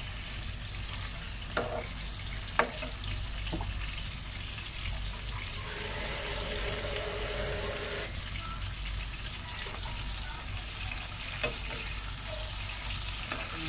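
Chicken legs and onions sizzling steadily in a frying pan as they are sautéed, with a few sharp knocks of the spatula against the pan as they are stirred.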